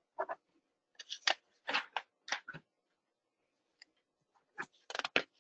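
A handful of brief rustles and scrapes close to a microphone, spread unevenly over a few seconds, as agenda papers are handled.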